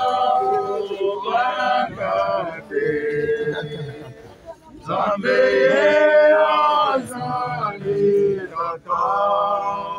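Mourners' voices chanting in long, drawn-out sung notes, with a short lull about four seconds in.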